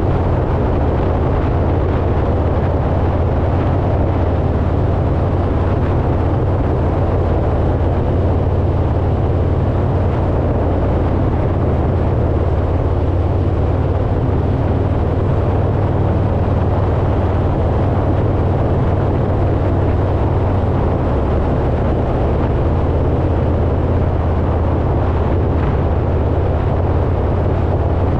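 Harley-Davidson Road Glide V-twin cruising at a steady speed, its low rumble mixed with heavy wind rush on a bike-mounted camera. The sound stays steady throughout, with no shifts or revs.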